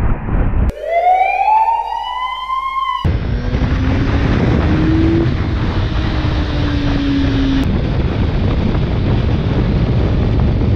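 Riding noise from a Honda CBR 600 sportbike at speed: steady wind rush over the engine. About a second in, it cuts out for roughly two seconds, replaced by a clean edited-in rising siren-like wail with overtones, and then the riding noise returns.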